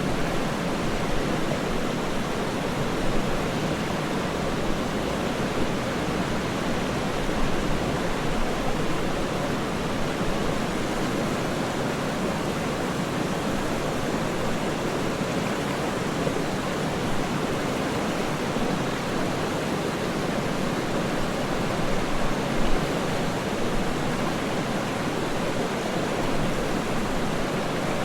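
Waterfall rushing in a steady, even roar of falling water, unchanging throughout.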